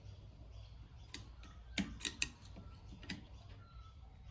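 Sharp metal-on-metal clicks of a scriber prying at the retaining ring inside a motorcycle fork tube: about five separate clicks, most of them bunched around the middle.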